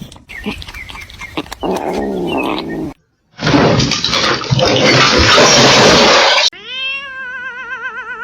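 Cat yowling: a long, wavering caterwaul near the end. Before it comes a shorter pitched cry, then about three seconds of loud rushing noise.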